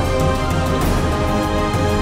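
Theme music from a drama trailer: sustained chords over a steady deep bass.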